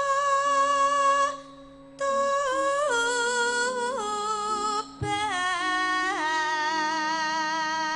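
A female Javanese sinden singing a slow langgam solo into a microphone: long held high notes that slide down in ornamented steps, with a breath about a second and a half in and another short one about five seconds in.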